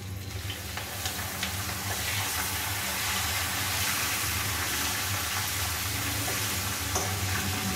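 Hot oil sizzling as fresh hibiscus flowers drop into a wok of coconut oil and neelibringadi oil with curry, henna and hibiscus leaves, stirred in with a ladle. The sizzle builds over the first second and then runs steady.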